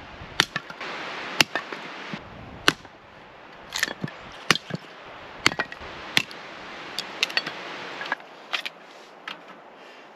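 Wood being chopped, a blade striking with sharp cracks about once a second, some in quick pairs, over a steady hiss.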